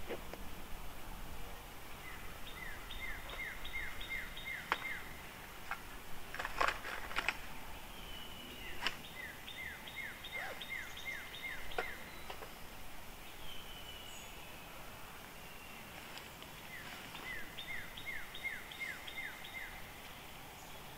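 A songbird singing three times, each song a quick run of about eight to ten down-slurred whistles. A few sharp knocks and clacks come in between.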